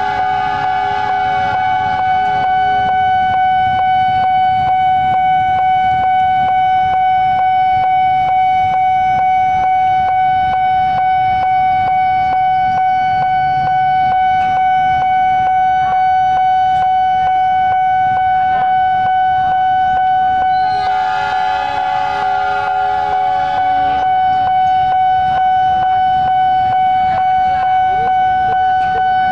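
A level-crossing warning alarm sounding one steady high tone without a break. Twice, through the first few seconds and again for about three seconds some twenty seconds in, an approaching train's horn sounds over it, above a low rumble of waiting traffic.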